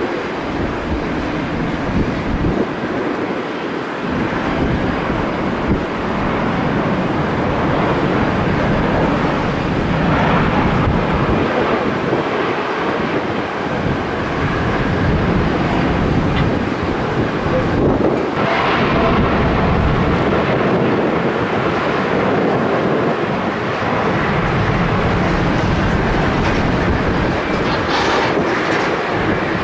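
Airliner jet engine noise, loud and steady, with wind buffeting the microphone.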